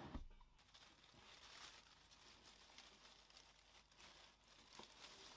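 Faint rustling and crinkling of a cloth bag handled by gloved hands inside a plastic tub, with a soft knock just after the start.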